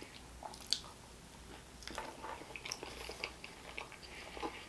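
A person chewing food, with soft scattered mouth clicks and one sharper click just under a second in.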